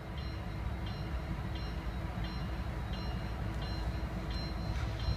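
Freight locomotive bell ringing at an even pace, about seven strikes, over the low rumble of idling diesel locomotives. The bell is the warning rung before the train starts to move.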